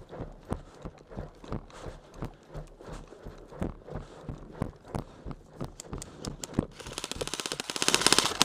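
Footsteps crunching over dry ground and brush at a walking pace, about two a second. Near the end, an airsoft rifle opens up in rapid full-auto fire, a fast clatter of shots that grows loud.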